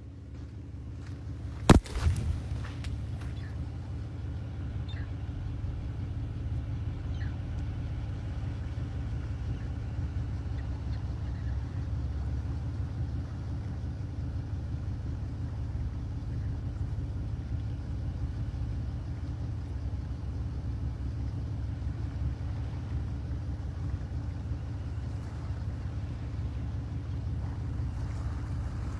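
Steady low rumble of a car's engine and tyres heard from inside the vehicle, with a single sharp knock about two seconds in.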